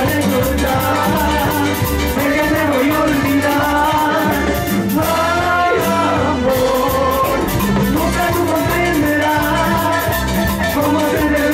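Live Latin dance band playing an instrumental passage: timbales, jam block and cymbal keep a fast, busy beat under a bass line and a sustained melody.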